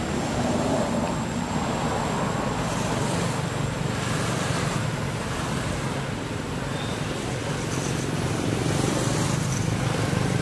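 Steady road traffic noise, swelling as a motorbike passes close by near the end.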